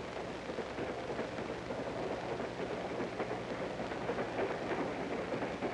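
Steady crackling hiss with a low, even hum: the surface noise of an old 16mm optical film soundtrack.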